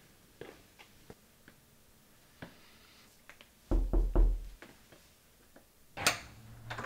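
Light footsteps on a wooden floor, then three quick knocks with a deep thump on a wooden door, then a sharp clack about six seconds in as the door is unlatched.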